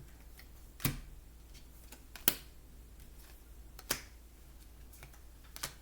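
Oracle cards being laid down on a table one at a time: four sharp slaps about a second and a half apart, the second loudest.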